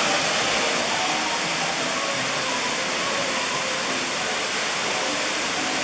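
A big waterfall's falling water makes a steady, unbroken rush.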